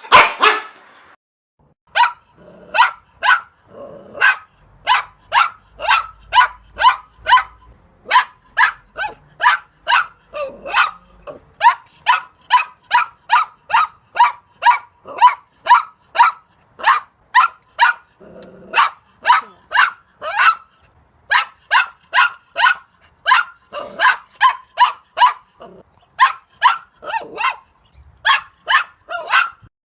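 Puppy barking over and over in short, sharp, high-pitched barks, about two a second, with a few brief pauses.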